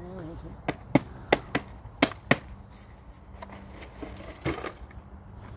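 A run of sharp knocks and chops from hand tools and pot being worked at a planting hole: about six quick strikes in the first half, a few more near the end.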